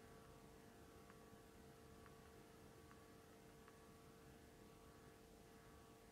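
Near silence with a faint steady electrical hum from the power supply and charger working at about 1000 W, with a few faint ticks about a second apart.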